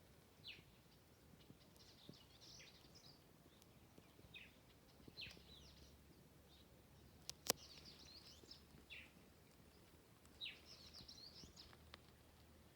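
Faint birdsong: small birds repeating short falling chirps and bursts of high twittering every second or two. About halfway through there is a single sharp click, the loudest sound.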